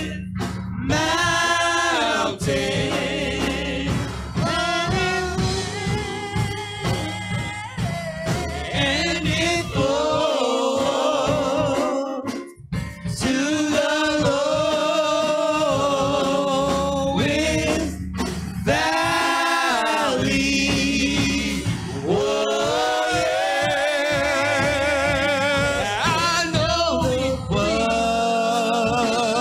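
Gospel singing by a church praise team: slow, held notes with a wavering vibrato and short breaths between phrases, over a steady low accompaniment.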